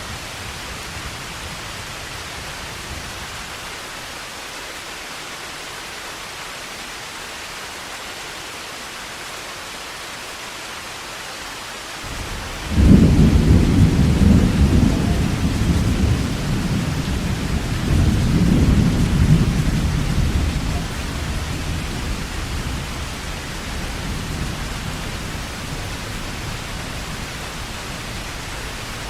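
Heavy rain falling steadily. About halfway through, a loud low rumble of thunder breaks in suddenly, swells a second time, then fades away over several seconds.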